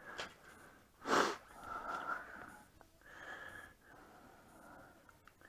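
A person's breathing close to the microphone, with one short, sharp breath about a second in and a few faint breaths after it.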